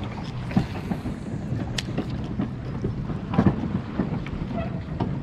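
Wind noise on a body-worn action camera's microphone, with scattered clicks and knocks from handling a baitcasting rod and reel through a cast and retrieve, over a steady low hum. A brief swish comes about half a second in, and a sharp click just under two seconds in.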